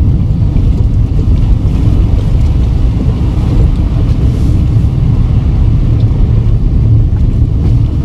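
Steady low rumble of a car driving a rutted, slushy dirt road, heard from inside the cabin: engine and tyre noise.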